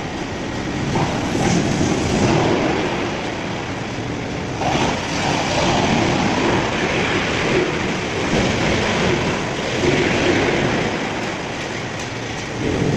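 Industrial wood shredder working through wood: a loud, dense rumbling and clattering grind that swells and eases every few seconds.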